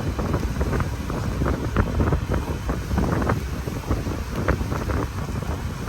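Wind buffeting the microphone over the low, steady rumble of a boat under way.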